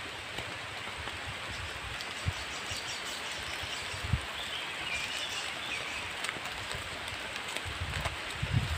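Forest ambience: a steady hiss, with a bird calling faintly about halfway through and a few soft thumps from footsteps on the dirt path, more of them near the end.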